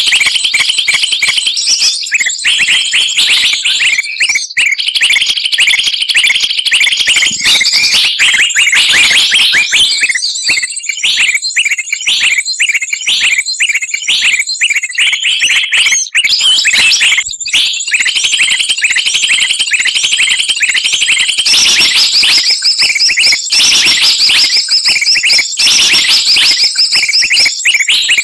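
A dense, loud chorus of many small songbirds chirping and chattering over one another without a break, all high-pitched rapid notes. It is a bird-lure (pikat) recording of mixed species, played to call wild birds down.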